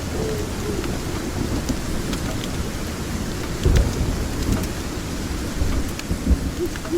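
Steady rain with a low rumble of thunder that swells about four seconds in, scattered small crackles of a wood fire, and an owl hooting near the end.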